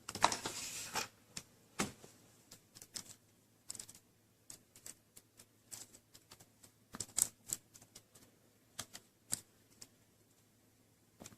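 A small Phillips screwdriver working a stuck screw in a laptop's screen frame: a short scrape in the first second, then scattered light metal-on-plastic clicks.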